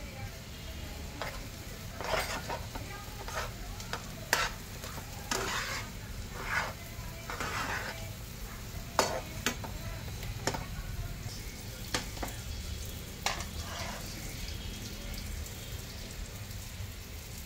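Metal spatula stirring and scraping thick semolina halwa around a nonstick frying pan, with irregular scrapes and knocks against the pan as the halwa is cooked in ghee.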